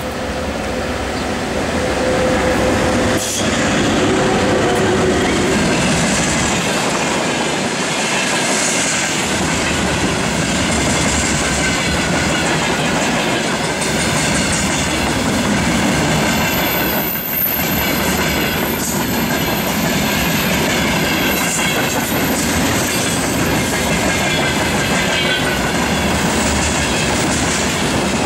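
A VL80S twin-section electric freight locomotive passes in the first few seconds, then a long train of open freight wagons rolls by. There is a steady, loud rumble and clatter of wheels on the rails, with some high wheel squealing.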